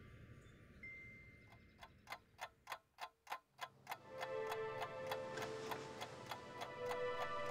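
Steady ticking at about three ticks a second, joined about four seconds in by sustained music tones held at several pitches.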